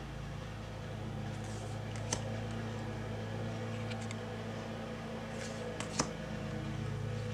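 Tarot cards being handled: soft slides of card on card and two light clicks, about 2 and 6 seconds in, over a steady low hum.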